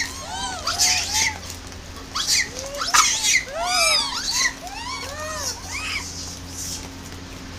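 A troop of macaques calling while they feed: many short, overlapping squeals that rise and fall in pitch, mixed with a few harsher, shrill shrieks, the loudest about three seconds in.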